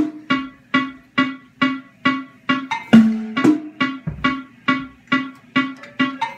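A single instrument playing a repeating riff of short, quickly fading notes, about four a second, with a lower accented note opening each phrase roughly every three and a half seconds.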